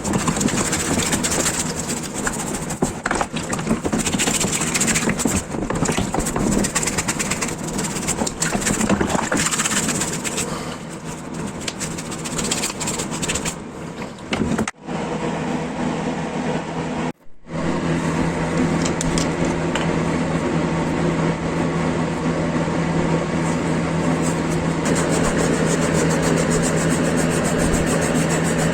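An electric power tool's motor running while abrasive work rubs on a part. The sound breaks off twice, about 15 and 17 seconds in, and after that a steady motor hum holds.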